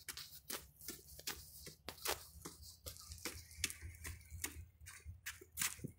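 Footsteps: a quick, irregular run of sharp clicks and taps.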